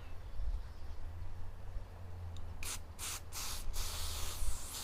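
Aerosol can of silicone lubricant spraying in three short bursts about two and a half seconds in, used to lubricate squeaking rubber door seals.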